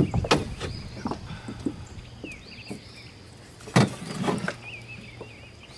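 A small flathead catfish is lifted out of the lake in a landing net and brought into a boat, with knocks and clatters of the net, its handle and the fish against the boat's side. The loudest knock comes about four seconds in, over a steady low hum.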